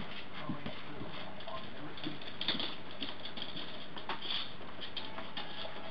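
Heavy rain falling and splashing on a wet paved patio and lawn: a steady hiss of rain with many small drip and splatter ticks.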